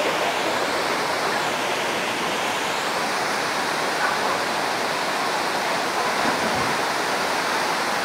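Waterfall pouring over rock ledges into a pool: a steady, unbroken rush of falling water.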